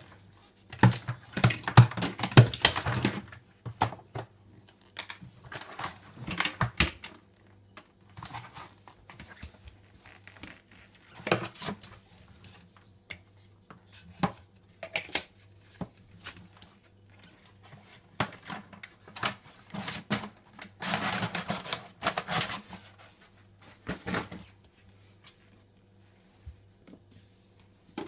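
Intermittent clattering, clicks and knocks of objects being handled, with two longer bursts of rattling and rustling, one near the start and one past the middle, over a faint steady low hum.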